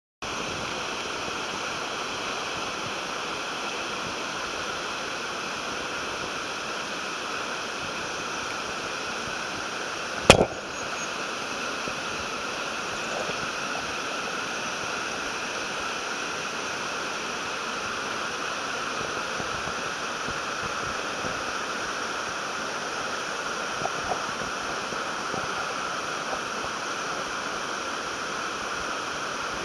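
Steady rushing of a mountain torrent over rocks and small waterfalls. A single sharp click cuts through it about ten seconds in.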